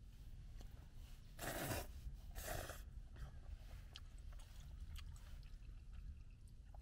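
Noodles slurped twice from chopsticks, two short noisy bursts about a second apart, followed by quiet chewing and small clicks of chopsticks against the pan.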